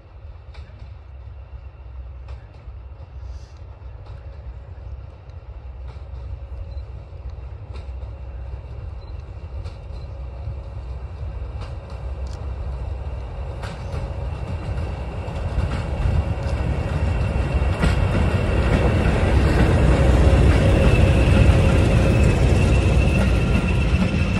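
Diesel locomotive hauling a train of passenger coaches approaching and passing: a low engine rumble with a steady high whine that grows steadily louder, peaks as the locomotive draws level, then eases slightly as the coaches roll by.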